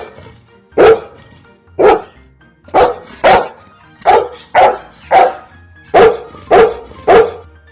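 A dog barking repeatedly, about ten short sharp barks at roughly one to two a second, some coming in quick pairs, with music playing underneath.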